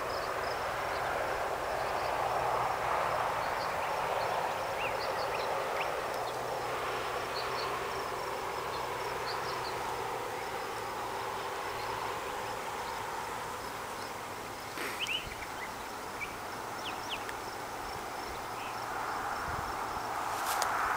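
Outdoor ambience: a steady rushing haze that swells and eases, with insects chirping faintly and rapidly in the background. A few short high chirps come about two-thirds of the way through.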